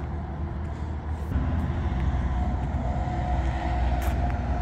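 Low, steady engine rumble that grows a little louder about a second in, with a faint whine over it.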